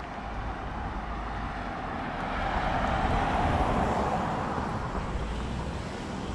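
A car driving past on the road: its tyre and engine noise swells to a peak about halfway through and fades away again, over a low rumble of wind on the microphone.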